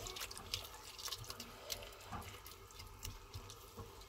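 Grated carrots and milk being stirred with a spoon in a cooking pot: faint wet sloshing with scattered light clicks.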